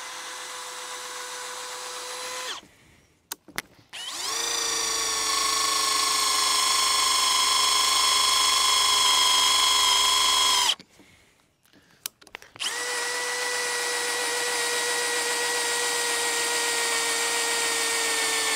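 Bosch GSB 185-LI 18 V cordless drill boring into a metal bar with a metal drill bit: the motor whines steadily in three runs, a shorter lighter one and then two longer, louder ones, with brief pauses and a few clicks between them.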